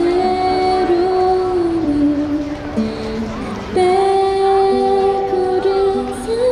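A woman singing a slow ballad over acoustic guitar, both amplified through a small portable amp. The voice holds two long notes with vibrato, the second starting about four seconds in.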